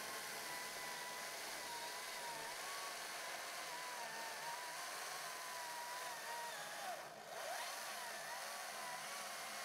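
Stihl MSA 220 C cordless chainsaw cutting through stacked 4x4 lumber. An electric motor whine sits over chain and chip noise, its pitch wavering as the load changes. About seven seconds in it dips briefly, then picks back up.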